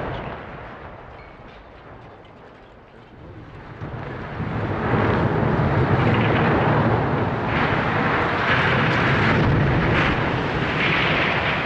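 Echo of the demolition blast dying away over the first few seconds, then a long, loud rumble with crashing surges as the blasted smokestack collapses and its debris hits the ground.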